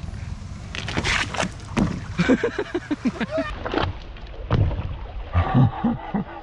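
Small boat being pushed off and paddled on a lake, with water splashing and knocks against the hull.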